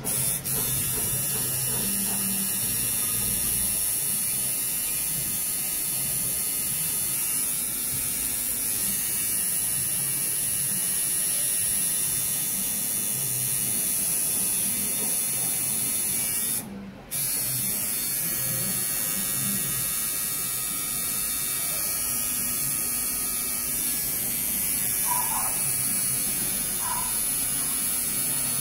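Electric tattoo machine buzzing steadily as the needle works into the skin of a man's neck.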